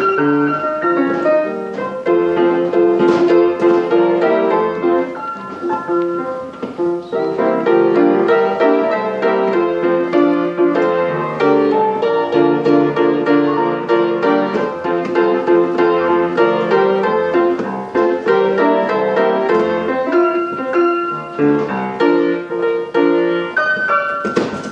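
Pianola (pneumatic player piano) playing a paper music roll, with dense, continuous piano notes, running after its bellows were repaired and a couple of sticky valves freed.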